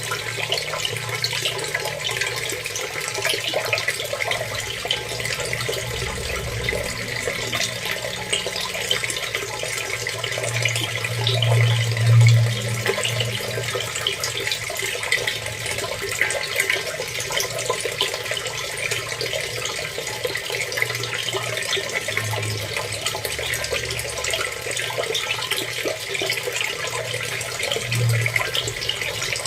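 Water running and splashing steadily, a continuous rush full of small crackles, with a low rumble underneath that swells now and then, most strongly about twelve seconds in.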